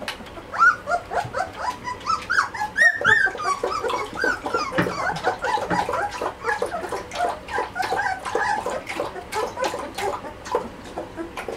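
A litter of 2½-week-old Belgian Malinois puppies whimpering and squeaking, many short high calls overlapping without a break, with scattered small clicks.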